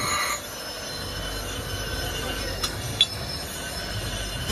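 Belt-driven abrasive grinding wheel running, with a steel blade squealing against it at the start; the squeal then gives way to the wheel's steady hum. Two sharp metal clinks come about three seconds in.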